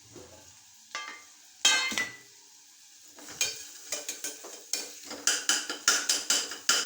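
Metal spoon stirring and scraping frying masala in a pan. Two sharp clinks of metal on the pan come in the first two seconds. From about halfway, quick scraping strokes follow at about three a second over a light sizzle.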